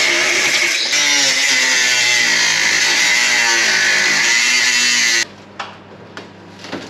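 Angle grinder with a cutting disc cutting through a steel frame: a loud, steady grinding whose pitch wavers as the disc bites. It stops abruptly about five seconds in, followed by a few light knocks as the metal frame is handled.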